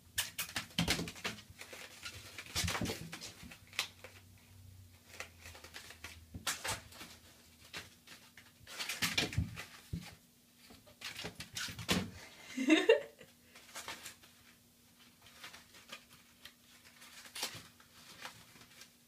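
A crumpled paper ball crinkling and skittering against an acrylic bathtub as a kitten bats and chases it, with scattered light taps and scuffs of paws.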